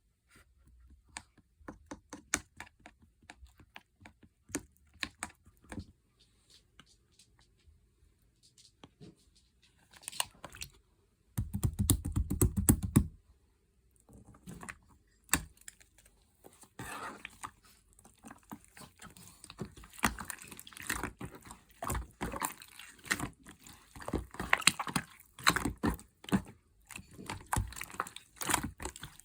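Slime being handled: irregular sticky clicks and crackles, sparse at first and thicker in the second half, with a louder, deeper patch of sound at about twelve seconds in.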